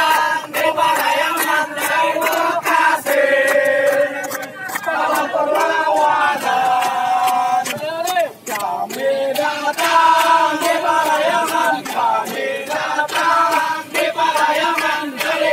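A crowd of marchers singing a song together, with held notes and hand claps.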